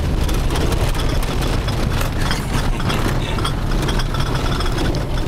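A car driving on a rough dirt road, heard from inside the cabin: the engine and tyres make a steady low rumble, with frequent small knocks and rattles from the bumpy surface.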